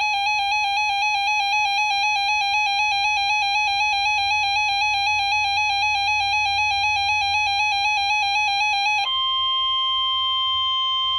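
Weather radio alert: a loud, rapidly warbling electronic alarm tone sounds for about nine seconds, then switches to a single steady weather alert tone that signals the start of a broadcast warning.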